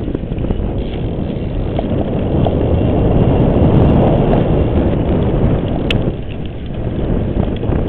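Wind rushing over the microphone of a bike-mounted camera, with the rumble of a mountain bike ridden fast over the course, louder around the middle. One sharp click about six seconds in.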